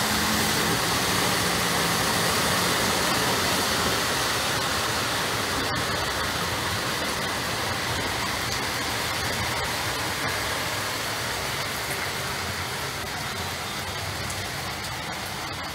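Heavy downpour with hail, rain pouring down steadily onto flooded pavement and running water, as an even rushing hiss that eases slightly towards the end.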